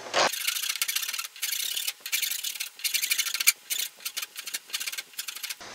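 Flat metal hand file scraping across the edge of a laminated wooden guitar neck in quick repeated strokes, a harsh high rasp broken by short gaps, shaping a carved facet down to a pencil line.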